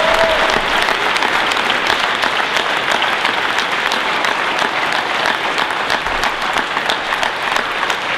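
Conference audience applauding steadily, a dense clatter of many hands clapping that thins slightly near the end.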